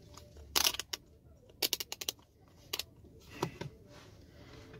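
A handful of short clicks and knocks as a digital multimeter and its test probes are handled and set against the charger's diodes, with a quick run of clicks about a second and a half in.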